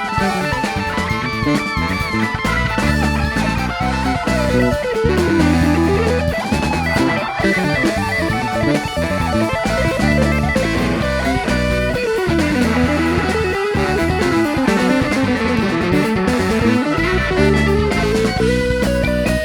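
Rock band playing an instrumental passage: electric guitar with long pitch slides sweeping up and down over bass guitar and drums.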